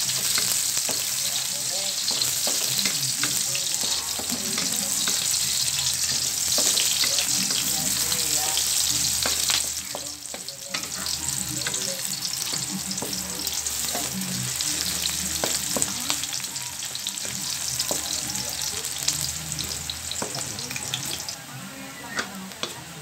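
Sliced onion, ginger and garlic sizzling in hot oil in a wok, stirred with a wooden spatula that scrapes and taps against the pan. The sizzle is strongest for about the first ten seconds, then drops and carries on more quietly.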